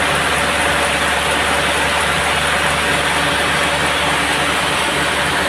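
Band sawmill running with a steady, unbroken mechanical noise and a low hum underneath.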